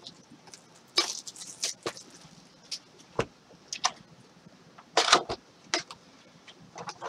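Crinkling, tearing and snapping of a trading-card box's plastic wrap and packs being opened by hand, in irregular sharp crackles with a louder burst about five seconds in.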